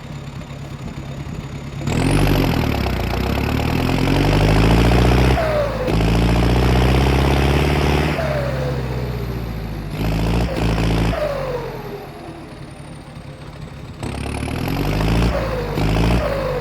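Belarus 1025.4 tractor's turbodiesel engine idling, then revved up about two seconds in and let back down several times, with a thin turbo whistle rising and falling with the revs.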